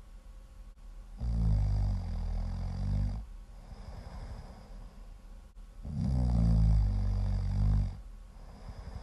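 Loud snoring: two long, rattling snores about four and a half seconds apart, each lasting roughly two seconds, with quieter breathing and a faint high whistle in between.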